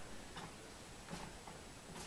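Faint soft rustles of a cat stepping and shifting its paws on a towel, heard a couple of times over a low steady hiss.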